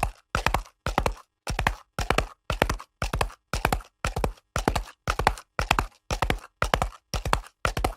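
Horse's hooves galloping on concrete: quick clusters of three or four sharp hoof strikes, about two clusters a second, in a steady, even rhythm.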